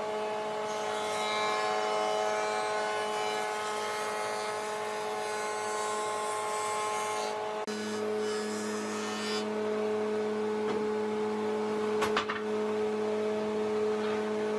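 A woodworking machine's electric motor running steadily with a constant hum. About halfway through, the hum changes abruptly to a different pitch, and there is a single sharp knock near the end.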